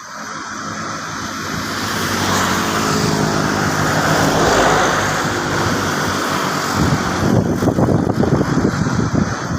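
A motor vehicle passing by, its engine growing louder to a peak about halfway through and then fading. From about seven seconds in, a flock of fowl honks rapidly and without let-up.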